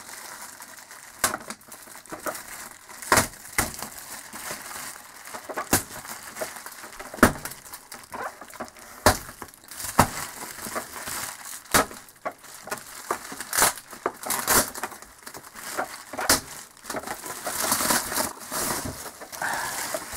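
Bubble wrap and packing tape being handled and pulled open: plastic crinkling and rustling, broken by many sharp crackles. A denser rustle comes near the end as the wrap is peeled back.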